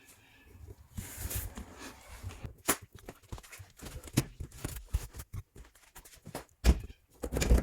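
Scattered clicks and knocks from hands and tools working on the car, with two heavier thumps near the end.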